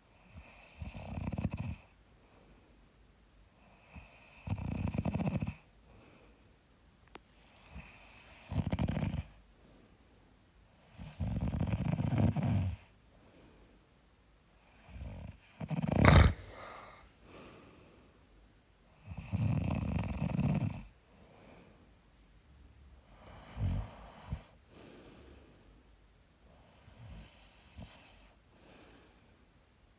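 A man snoring in his sleep: about eight snores, one every three to four seconds, with the sharpest and loudest about halfway through.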